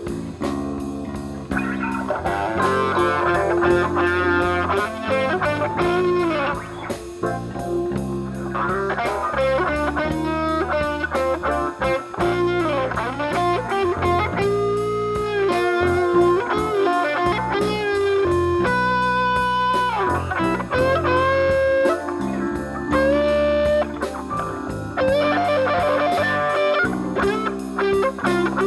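Live blues band playing an instrumental break: an electric guitar solo with bent, sustained notes over electric bass and keyboard.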